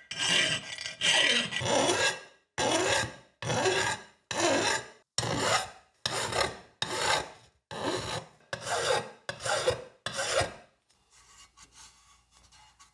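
Hand-rubbing a metal bench-grinder part with an abrasive: about a dozen rasping back-and-forth strokes, a little over one a second. They stop near the end, leaving faint light knocks.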